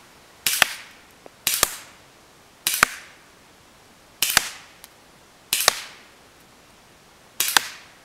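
Six semi-automatic shots from a KWC Desert Eagle CO2 airsoft pistol, fired one at a time about one to two seconds apart. Each report is followed a split second later by a sharper snap.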